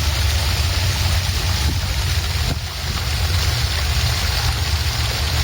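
Water fountain splashing and running steadily, a continuous rushing hiss over a strong low rumble.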